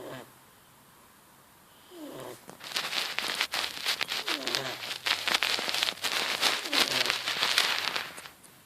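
Sleeping cat snoring, one short falling snore about every two seconds. From about two and a half seconds in, a loud crackling, rustling noise covers the snoring and stops shortly before the end.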